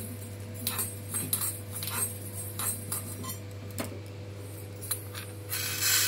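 Metal spoon stirring and scraping fenugreek seeds as they dry-roast and crackle in a kadai, in scattered clicks. Near the end the roasted seeds are tipped out onto a steel plate with a loud rattling rush.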